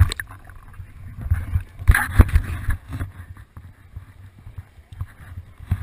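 Water splashing and sloshing against a handheld waterproof camera as it comes up out of the water, with a few sharp knocks on the housing about two seconds in, then lighter lapping.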